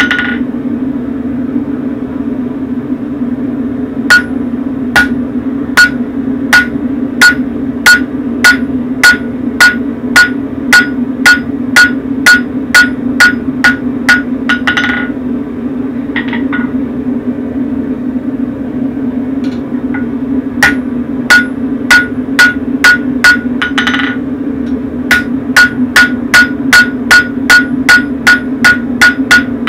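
Blacksmith's hand hammer striking hot steel on a Hay Budden anvil, drawing out half a horseshoe: about two blows a second, each with a short bright ring from the anvil, in three runs broken by short pauses. A steady low hum runs underneath.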